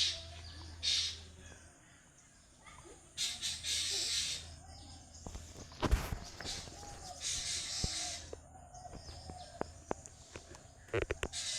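Birds chirping and calling, with three short bursts of hiss and a sharp knock about six seconds in, then a run of light clicks near the end.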